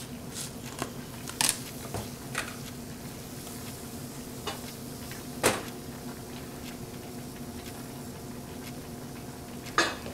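Scattered clinks and knocks of dishes and utensils handled on a kitchen counter, the sharpest about halfway through, over a steady low hum of kitchen appliances.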